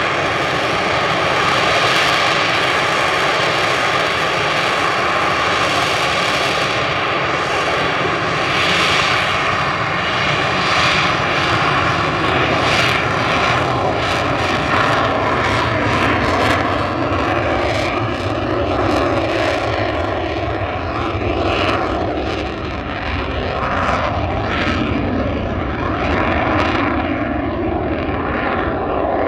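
BAE Hawk T2 jet trainer's Adour turbofan at take-off power: loud, steady jet noise with a whine as the jet accelerates down the runway. The pitch drops a little past the middle as it goes by, and the high hiss fades near the end as it lifts off.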